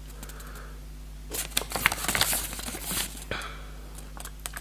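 Paper rustling and crinkling for about two seconds, starting about a second in, as the watch's paperwork is handled and leafed through, with a sharp click near the end of it.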